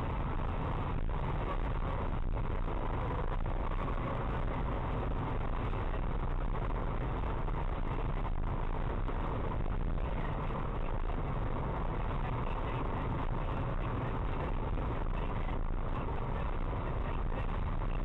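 Steady road and engine noise inside a moving car's cabin, picked up by a windscreen dashcam.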